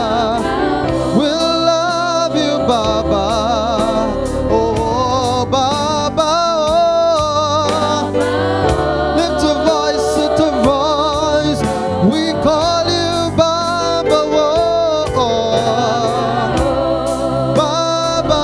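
Gospel worship music: singing with vibrato over a band, with sustained bass notes and a steady drum beat.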